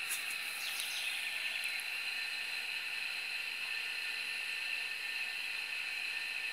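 Steady high-pitched outdoor hiss or buzz, with a few faint ticks in the first second.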